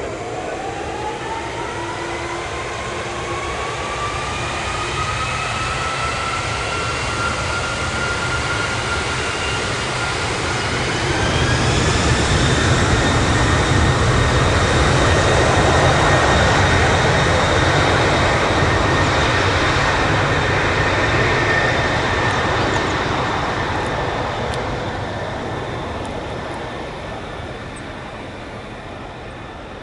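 Boeing 747-400 freighter's four turbofan engines spooling up to takeoff power: a rising whine climbs in pitch over the first dozen seconds. The jet noise then grows loud, peaks for several seconds, and fades away near the end.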